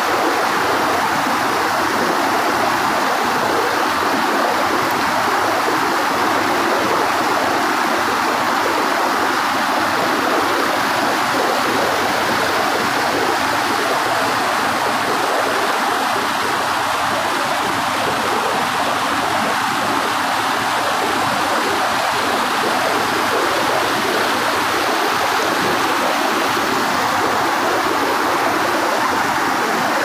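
A hill river, swollen and muddy after overnight rain, rushing steadily over boulders in shallow rapids.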